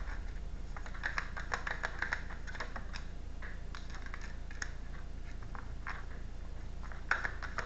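Tarot cards being shuffled and handled: irregular light clicks and flicks of card against card, busiest in the first few seconds and again near the end, over a steady low electrical hum.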